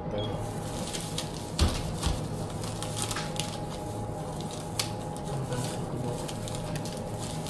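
Supermarket background: a steady hum under scattered small clicks and knocks of goods being handled, with one louder knock about one and a half seconds in.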